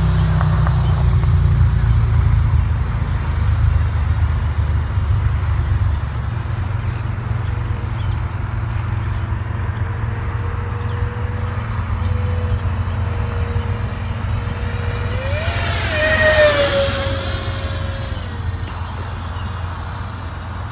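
E-flite F-15 Eagle's 64 mm electric ducted fan whining steadily as the model jet flies, over a steady low rumble. About sixteen seconds in it passes close, getting louder as its whine rises and then drops in pitch.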